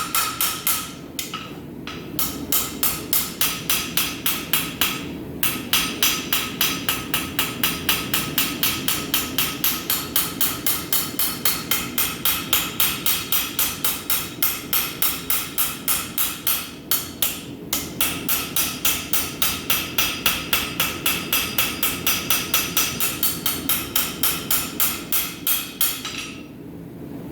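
Rounding hammer striking a steel bar on an anvil in quick, even, ringing blows, about four a second, with a few short pauses. These are light smoothing blows on steel at black heat, just below a dull red.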